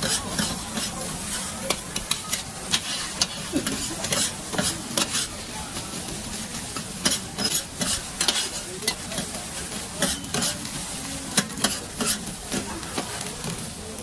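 Stir-frying in a wok over high heat: steady sizzling, with a metal utensil scraping the wok and knocking against it in frequent sharp, irregular clanks.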